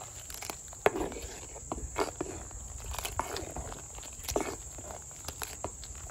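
Metal ladle stirring thick sambar in a clay pot: irregular knocks and scrapes of the ladle against the pot, the loudest about one second in, about two seconds in and just after four seconds, with the liquid sloshing.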